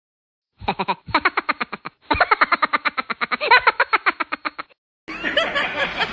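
An edited-in sound effect: three quick runs of short pitched pulses, about ten a second, replacing the room sound, which cuts out around it.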